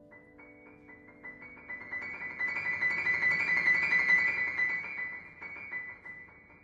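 Piano playing quick repeated notes high in the treble in a contemporary classical piece, growing denser and louder to a peak around the middle, then thinning out and fading.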